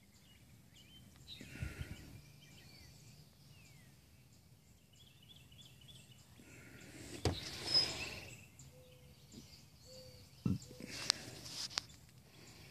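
Small birds chirping faintly, broken by a few short rustles and knocks close by, the loudest about seven to eight seconds in.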